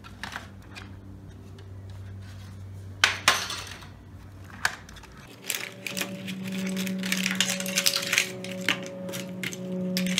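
Old computer parts (plastic casings, circuit boards, metal pieces) clattering and clinking as they are rummaged through in a plastic tub, with a sharp knock about three seconds in and a busier run of rattling over the second half.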